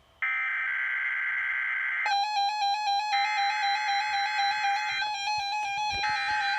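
NOAA Weather Radio SAME data header for a weekly test: a harsh two-tone digital screech that starts about a quarter-second in and repeats three times, with about a second's pause between bursts. From about two seconds in, background keyboard music with stepped notes plays underneath.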